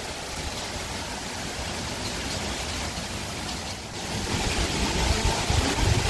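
Steady rushing hiss of a summer thunderstorm's rain and wind, swelling a little about four seconds in.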